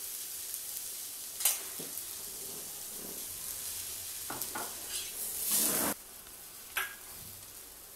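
Shredded vegetables sizzling in a hot pan on a gas stove, with a few light knocks and a brief louder scrape of a metal spatula stirring them about five seconds in. The sizzle is quieter after about six seconds.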